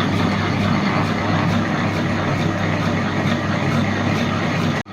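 Electric wet grinder running steadily, its motor humming while the rotating stone grinds urad dal batter, with a faint regular ticking. The sound drops out for an instant near the end.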